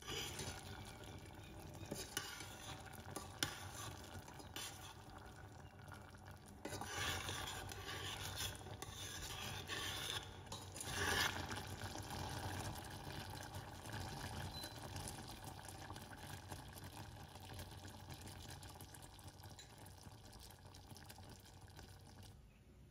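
Peach filling in a butter and brown-sugar sauce bubbling in a small pan while a spoon stirs it, scraping and tapping against the pan, louder for a moment about 7 and 11 seconds in.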